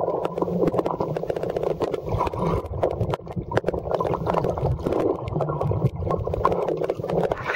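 Swimming-pool water heard from underwater: a muffled, dense crackle of bubbles and churning water as a swimmer moves close by, with the high sounds cut away.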